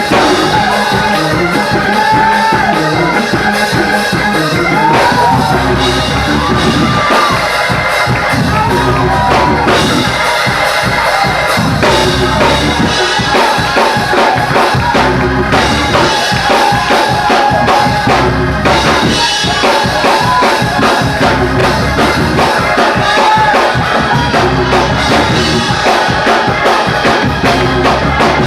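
Live church band playing an up-tempo praise break, drums keeping a fast steady beat, with voices of the congregation singing and shouting over it.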